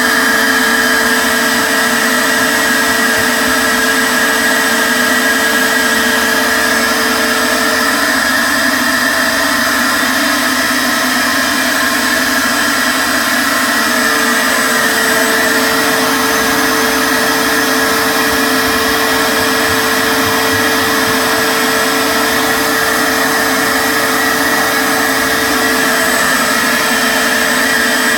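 Wet/dry shop vacuum running steadily, sucking up floodwater, with a loud high-pitched whine. One steady tone in its sound drops away for several seconds partway through, then returns.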